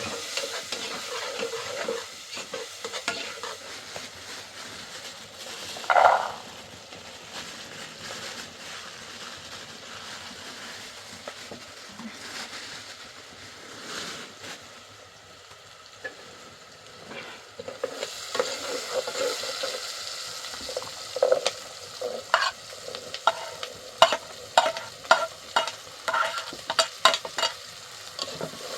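Food sizzling in a frying pan as it is stirred, with one louder knock about six seconds in. In the last ten seconds there is a quick run of sharp clicks and knocks, a utensil striking the pan.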